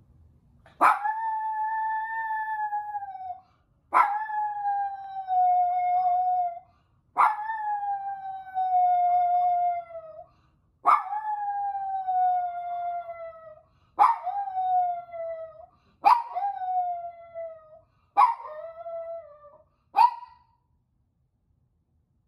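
Toy poodle howling when left alone: eight howls about every three seconds, each starting with a sharp yelp and sliding slowly down in pitch. The later howls grow shorter, and the last is only a brief yelp.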